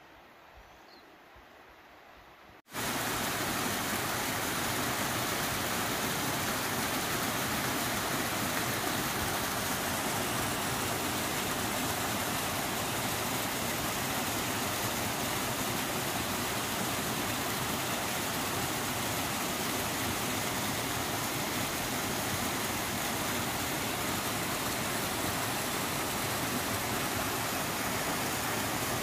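Quiet at first, then about three seconds in the steady, full rush of a small waterfall cascading over rocks starts abruptly and holds evenly.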